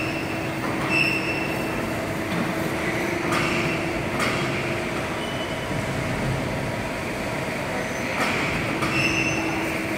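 400-ton hydraulic CNC press brake running: a steady hum with short high-pitched whines that come and go, and a couple of sharp clicks about three to four seconds in.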